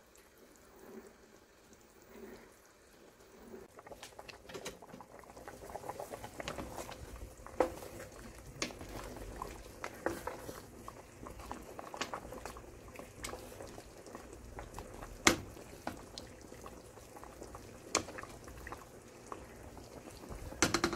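Soy-sauce braising liquid of Korean braised beef short ribs bubbling at a boil in a large pot, the popping growing louder about four seconds in. A wooden spoon stirring knocks sharply against the pot a few times.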